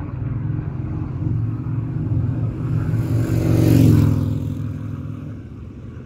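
Harley-Davidson Sportster Iron 883 air-cooled V-twin with a Supertrapp SuperMeg 2-into-1 exhaust riding past at about 50 mph. It grows louder to its loudest about four seconds in, then drops in pitch and fades as it moves away.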